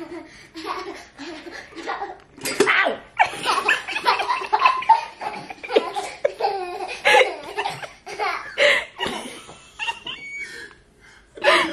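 Laughter in a long string of short bursts, dropping away briefly just before the end.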